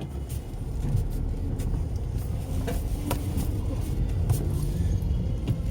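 Car running, heard from inside the cabin: a steady low rumble of engine and road noise while driving, with a few faint clicks.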